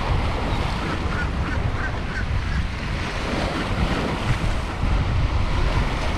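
Strong storm wind buffeting the microphone over the steady rush of wind-driven surf. A few faint short high calls come through in the first couple of seconds.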